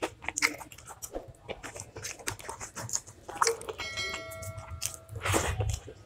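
Close-miked eating sounds: wet mouth clicks and chewing of a curry-and-rice meal. About four seconds in, a clink rings on for about a second, like a utensil or dish being knocked. A louder, longer mouth sound follows near the end.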